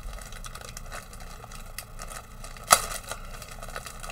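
Clear plastic bag crinkling as a plastic model-kit sprue inside it is handled, a run of small crackles with one sharp, loud crackle about two-thirds of the way through.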